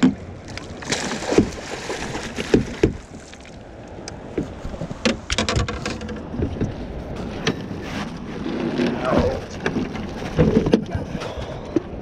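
A big blue catfish splashing in a landing net at the side of an aluminum boat, with scattered knocks and clunks against the hull. The net is hauled aboard near the end.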